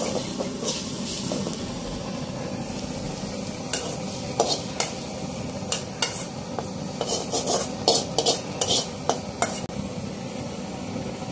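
A perforated steel ladle stirring and scraping roasted grated coconut in a steel bowl, then scooping it onto a steel plate with repeated metal clinks and scrapes, busiest past the middle. A steady hiss runs underneath.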